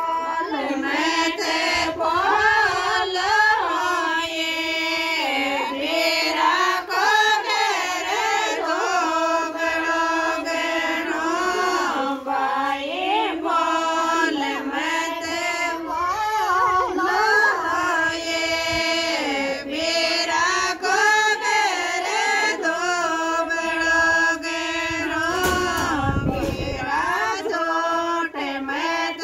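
Women singing a Rajasthani folk song together in one melodic line, with long held, gliding notes. A short low rumble comes about three seconds before the end.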